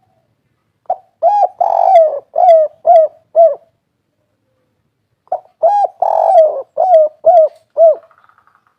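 Spotted dove (tekukur) cooing its song twice, a few seconds apart: each phrase a short note, a longer slurred coo, then three short clipped coos, the 'kuk 3' song type that keepers prize.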